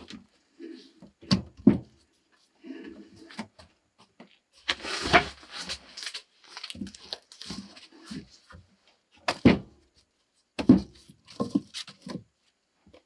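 Wooden knocks and thuds as log posts are handled and stood upright against a log wall, with a longer scraping clatter about five seconds in.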